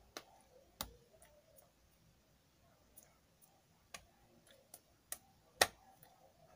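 About seven short, sharp clicks and taps at irregular intervals over faint room tone, the loudest about five and a half seconds in.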